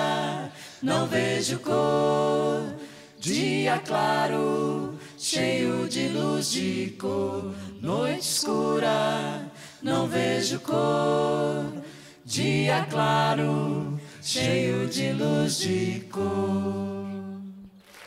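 Singers' voices singing to the fore with little instrumental backing, in sung phrases of one to two seconds with short pauses between them. The singing stops just before the end.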